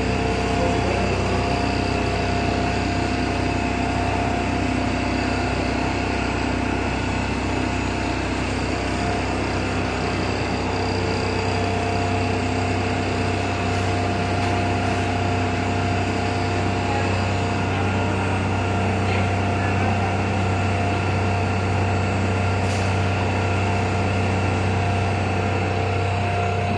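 Industrial fryer line running, its motor-driven mesh conveyors giving a steady machine hum with a constant tone.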